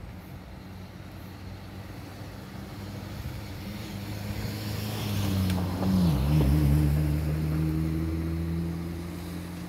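Diesel engine of a Marcopolo G7 1350 intercity coach pulling out and passing close by. It grows louder to a peak about six seconds in, where the engine note dips briefly in pitch, then runs on steadily.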